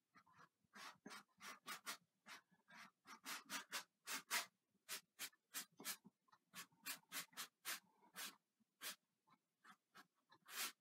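Paintbrush stroking oil paint onto canvas: a quick, uneven run of short, faint scratchy strokes, about two or three a second, as a distant mountain is sketched in with the brush tip.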